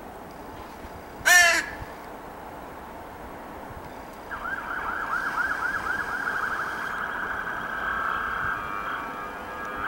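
A crow gives one loud, harsh caw about a second in. From about four seconds a continuous, rapidly wavering whine sets in and grows louder.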